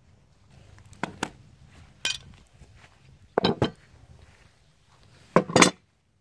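Heavy rusty steel pipe wrench and slip-joint pliers clanking as they are set down on a table, in four short clusters of clanks about a second or two apart.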